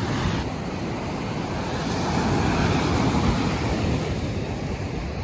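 Ocean surf breaking and washing up a sandy beach, a wave swelling louder about halfway through and then easing.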